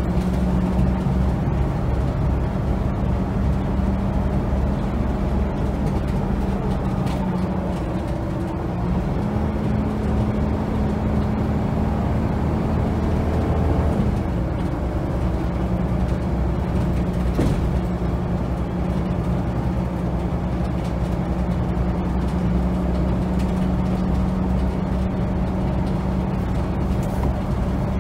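Volvo B7TL double-decker bus's six-cylinder diesel running under way, heard from inside the lower deck. The engine note climbs slowly, then drops suddenly about halfway through and settles to a steady drone again.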